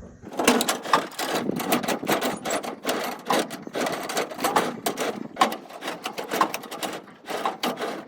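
Combine's main grain elevator chain being turned by hand, its links clicking and rattling over the sprockets in a rapid, irregular clatter.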